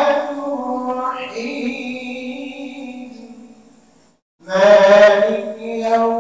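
A man's voice chanting an Islamic recitation in long, drawn-out melodic phrases. One phrase fades out about four seconds in, and after a brief pause the next begins.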